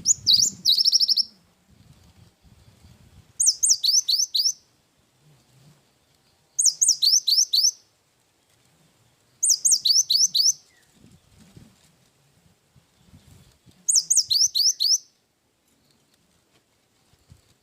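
Cinereous tit (gelatik batu) singing loud, fast phrases of high, downward-sweeping whistled notes. Each phrase lasts about a second and is repeated five times, roughly every three seconds.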